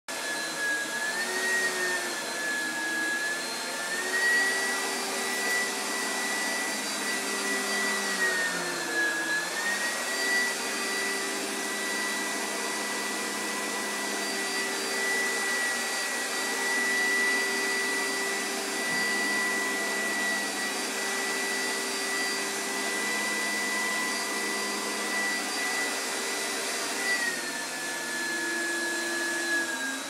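Upright vacuum cleaner running on carpet: a steady motor whine that dips in pitch a few times and settles a little lower near the end.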